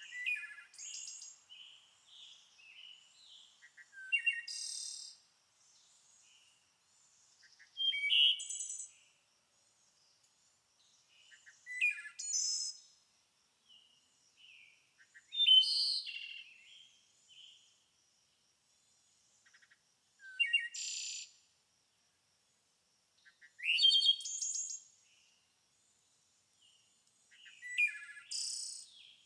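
Birdsong in a forest: a songbird sings short, bright, warbling phrases about every four seconds, with softer chirps between them. A faint, steady high-pitched tone runs underneath.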